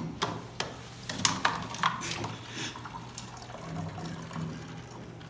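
Water running from a bottled-water cooler's taps into cups, with a series of sharp clicks and knocks in the first three seconds.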